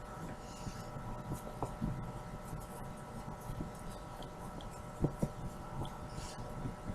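Hands working and stretching pizza dough on a floured counter: soft rubbing with a few light pats and knocks, two of them close together about five seconds in, over a steady electrical hum.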